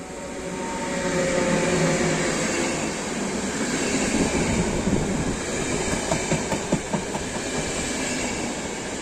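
Electric locomotive 120028 (class 120) and UIC-Z1 passenger coaches passing on the track: the rumble of the train swells over the first second or two and stays as steady wheel-on-rail noise. About six to seven seconds in there is a quick run of sharp clicks as wheels cross rail joints.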